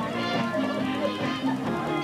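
Music playing, with several instruments sounding together.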